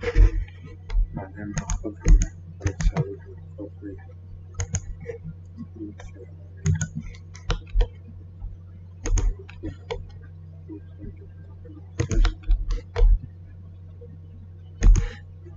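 Computer keyboard and mouse being used: irregular clusters of sharp key presses and clicks over a steady low hum.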